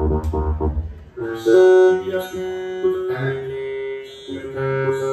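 Live electronic band music: a fast, bass-heavy pulsing keyboard pattern stops abruptly about a second in, then sustained keyboard notes ring out, changing pitch every second or so.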